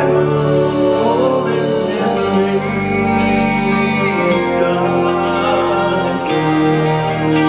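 Live rock band in full sound: a male lead singer sings over long held keyboard chords and bass, with a cymbal crash about every two seconds.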